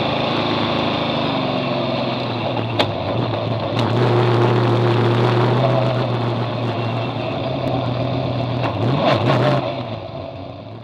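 Superstock speedway car's engine, heard from inside the cockpit, running at low, steady revs, with two sharp knocks about three and four seconds in. Near the end the revs rise briefly, then the sound fades out.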